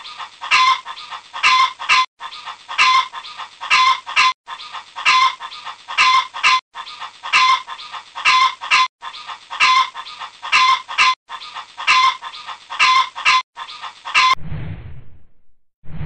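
Chickens clucking, as a clip of about two seconds looped over and over with a short break between repeats. Near the end the clucking stops and a whoosh sound effect sweeps in.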